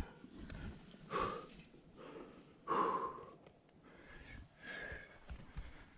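A rock climber breathing hard on the route, with two loud breaths about one and three seconds in and softer ones after.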